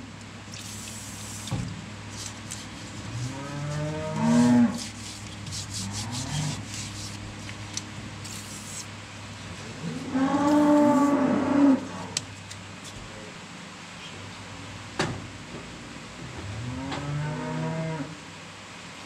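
Cattle mooing three times, each call a long low that rises and falls in pitch, over a low steady hum, with a sharp tap about fifteen seconds in.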